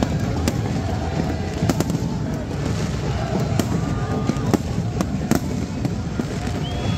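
Fireworks bursting overhead, with sharp bangs and crackles about once a second over a dense crowd din, and a few short whistling tones.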